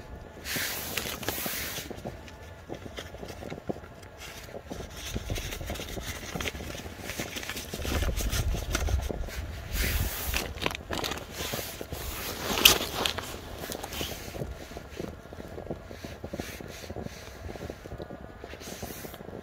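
Close rustling and scraping of a plastic food bag and a down jacket sleeve as snacks are handled, with a gust of wind rumbling on the microphone partway through and one sharper knock about two-thirds of the way in.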